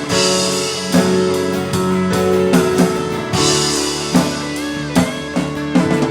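Worship band playing an instrumental passage on guitar and drum kit, with cymbal washes near the start and again about three and a half seconds in.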